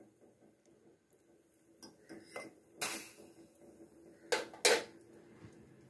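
A metal spoon clinking and scraping against steel vessels as a spoonful of sugar is scooped and added to the tea pot: a few light clinks from about two seconds in, and two sharp ringing clinks near the end.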